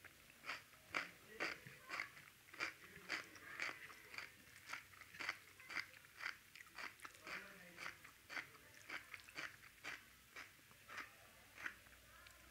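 A person chewing a mouthful of rice and besan curry: a steady run of soft, wet mouth clicks about two a second.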